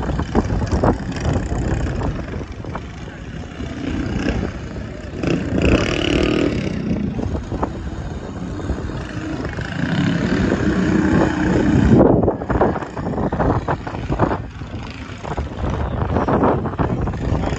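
Small mini bike engines running and revving up and down as the bikes race over a dirt track, with voices of onlookers.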